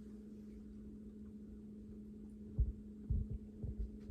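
Steady low electrical hum, with a few dull low thumps in the second half.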